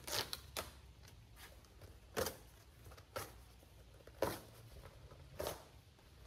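About half a dozen light knocks and scrapes of handling, spaced unevenly a second or so apart, over a low steady room hum.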